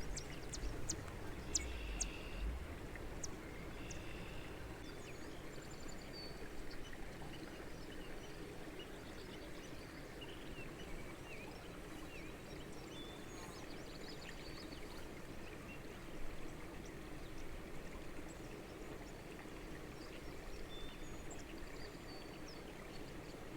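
Quiet outdoor ambience: a steady low rush with scattered faint high chirps, and a few light ticks in the first couple of seconds.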